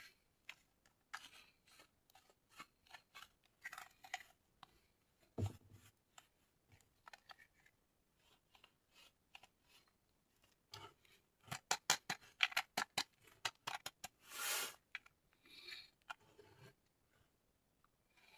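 Scissors snipping through toy packaging: scattered sharp clicks, then a quick run of snips about two-thirds of the way through, followed by a short rustle.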